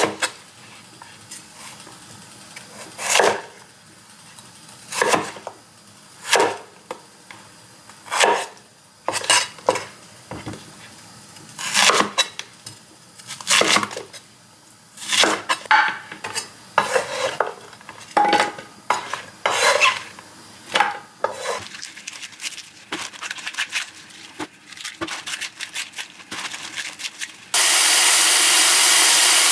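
Chinese cleaver chopping a peeled winter bamboo shoot into chunks on a wooden cutting board: single sharp knocks of the blade through the shoot onto the board, a second or two apart at first and coming closer together later. Near the end the chopping stops and a tap runs steadily, water splashing onto bok choy in a plastic colander.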